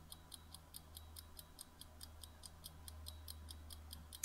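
Quiz countdown-timer sound effect: faint, evenly spaced clock ticks at about four a second over a low steady hum, stopping near the end as the time runs out.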